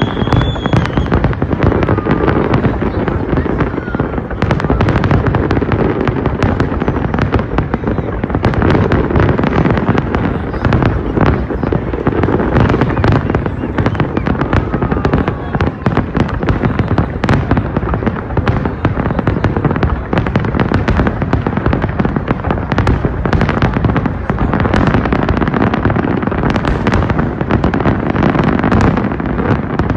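Fireworks display going off in a dense, unbroken barrage of bangs and crackling.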